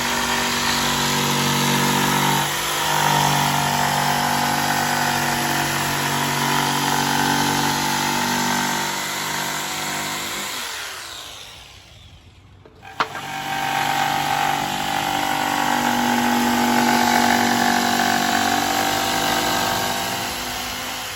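Electric power tool motor running steadily in two long runs. It winds down about ten seconds in, and starts again with a click a couple of seconds later.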